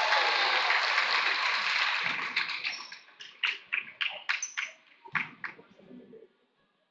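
Gym crowd applauding; the applause dies away a little over two seconds in, leaving a few scattered claps that stop after about five seconds.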